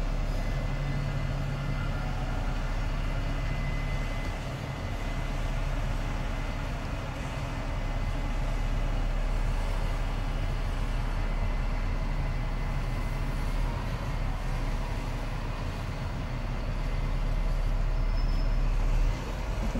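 Diesel engine of a Wright-bodied DAF double-decker bus running steadily, heard from inside the driver's cab.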